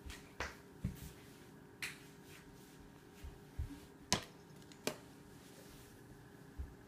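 A toddler tidying up toys: a handful of separate sharp light knocks and clicks, the loudest about four seconds in, as toys are handled and dropped into a fabric toy bin.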